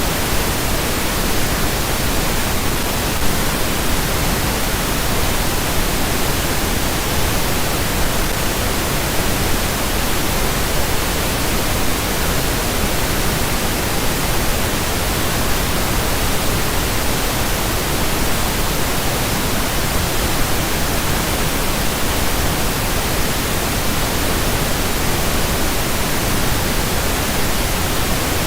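Steady pink noise: an even, unchanging hiss spread across all pitches, played as a sleep sound.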